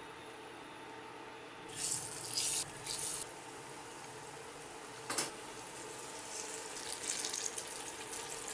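Kitchen tap running water into a sink in short spurts, about two and three seconds in, then flowing unevenly again near the end, with a single knock just after five seconds.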